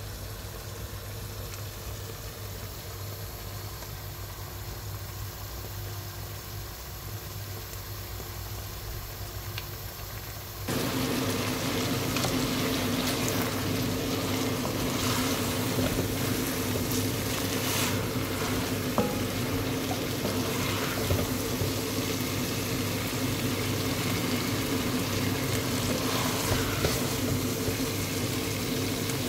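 Potato and chickpea mixture sizzling and simmering in a pan, with a steady hum underneath and a few light scrapes of a wooden spoon stirring. About a third of the way in, the sound jumps abruptly louder and stays there.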